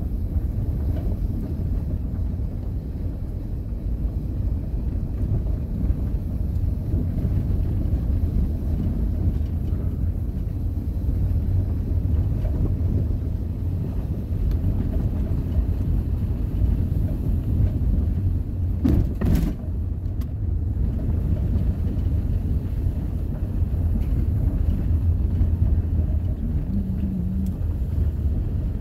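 Vehicle driving, a steady low rumble of engine and road noise heard from inside the cabin, with a single brief knock about nineteen seconds in.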